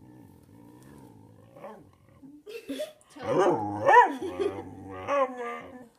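Whippet vocalising to ask for food: a long low grumble, then a run of louder yowling calls that rise and fall in pitch, the loudest about four seconds in.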